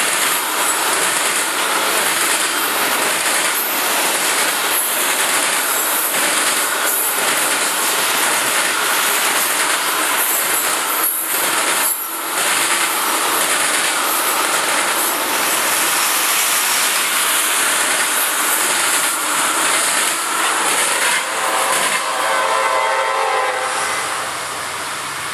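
Freight train of tank cars rolling past at speed: a steady, loud rush of steel wheels on rail. About 22 seconds in the cars have cleared, the level drops, and an approaching CSX diesel locomotive sounds its air horn, quieter than the passing train.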